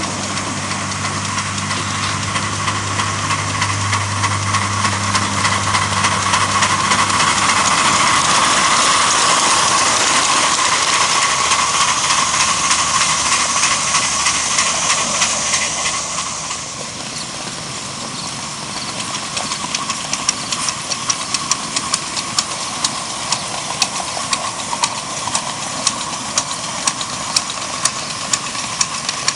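7-1/4 inch gauge live steam locomotives running: a loud steam hiss with a low hum in the first several seconds, then a locomotive working along with sharp, even exhaust chuffs, about one and a half a second, over the last ten seconds.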